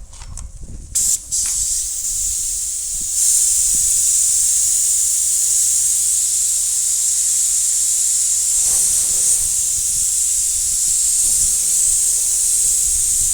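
Compressed-air paint spray gun spraying pearl paint: two short trigger bursts of hiss about a second in, then a steady loud hiss from about three seconds in.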